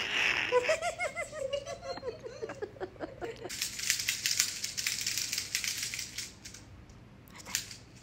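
African grey parrot laughing: a quick run of about ten short, falling "ha-ha" syllables, followed by a few seconds of soft, breathy hissing.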